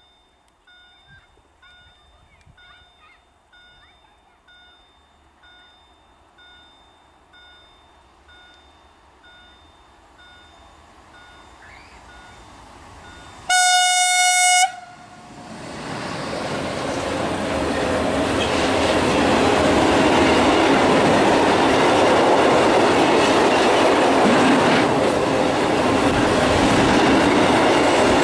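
Newag Dragon (E6ACTa) electric locomotive sounding its horn once, a single steady note lasting about a second, about halfway in. The train of tank wagons then comes by close, its wheels rumbling and clattering on the rails, growing louder and staying loud to the end.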